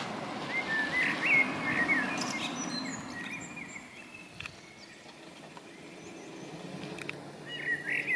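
Common blackbird singing: a warbling phrase about a second in and another near the end, with a few thin high notes in between, over a steady low outdoor background hum.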